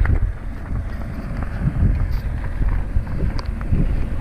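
Wind buffeting an action camera's microphone on board a small sailing dinghy: a low, uneven rumble.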